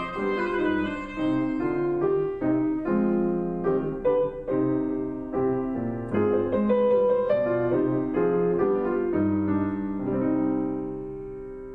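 Grand piano playing a classical solo passage of flowing notes and chords, the oboe silent; it ends on a held chord that rings and fades away over the last couple of seconds.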